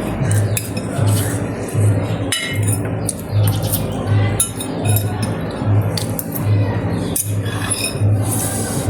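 Background music with a steady low beat, with clinks of eating utensils against dishes over it.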